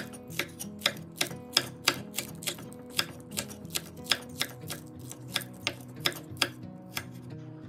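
Chef's knife chopping green onion on a wooden cutting board: sharp knocks of the blade on the board, about three a second, stopping near the end.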